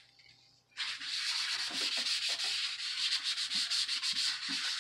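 A wad of tissue paper rubbed in quick back-and-forth strokes over a laptop's plastic bottom case, wiping off leftover glue. The rubbing starts about a second in.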